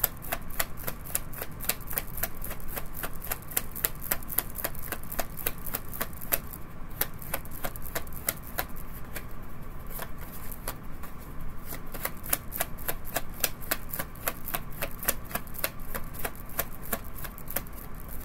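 A tarot deck being shuffled by hand: the cards make an uneven run of small, sharp clicks, several a second, without a break.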